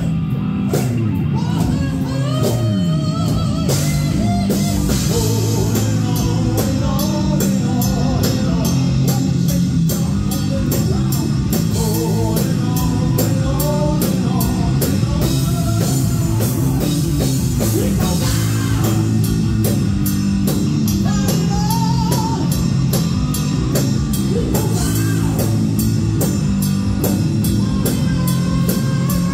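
Heavy metal band playing live at full volume: distorted electric guitar, electric bass and a drum kit, with a lead line bending up and down in pitch over fast, steady drumming.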